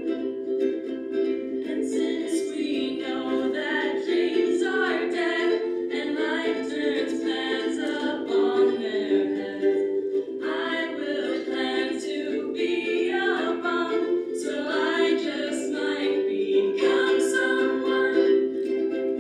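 A group of ukuleles strumming chords together, with voices singing along. The singing comes in about two seconds in and pauses briefly between phrases while the strumming carries on.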